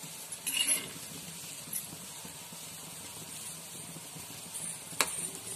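Vegetable Manchurian balls sizzling as they deep-fry in hot oil in a kadai while a metal spoon turns them: a brief scrape about half a second in and a sharp clink of the spoon on the pan near the end.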